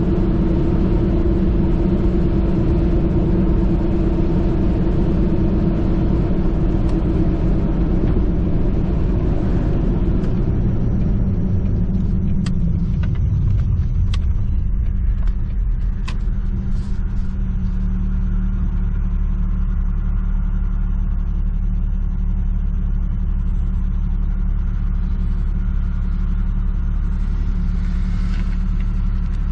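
A 1998 Jeep Cherokee XJ running down the road, heard from inside the cabin: engine and road noise. About halfway through the road noise falls away to a lower, steady engine hum, with a few light clicks.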